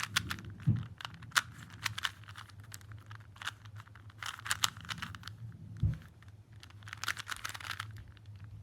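Plastic Rubik's-brand cube (a standard cube, not a speed cube) being turned by hand: quick clusters of clicking, rasping layer turns. Two dull low knocks come about a second in and near six seconds.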